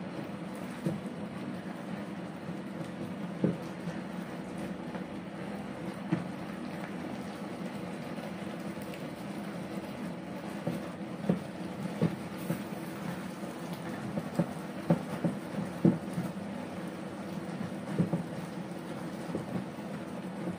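Sweet potato leaves and sardines stir-frying in a frying pan: a steady sizzle over a low hum, with a spatula scraping and knocking against the pan now and then, more often in the second half.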